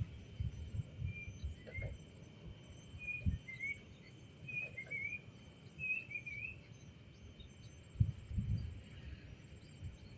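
Birds chirping in short warbled phrases over a high, pulsing insect trill, with irregular low rumbles, the strongest about eight seconds in.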